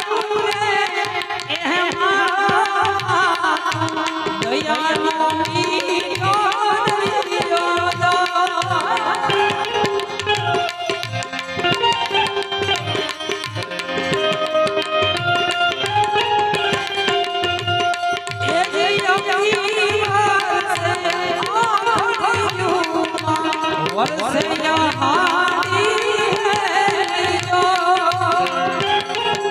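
Instrumental interlude of a Gujarati bhajan: tabla keeping a steady beat of about two strokes a second under a wavering, ornamented melody line.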